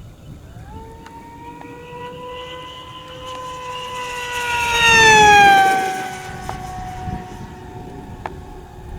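Durafly EFX Racer RC plane's brushless electric motor and propeller whining through a high-speed pass on a 5S battery: the pitch holds nearly steady as it closes in, grows to its loudest about five seconds in, then drops in pitch as it flies by and away.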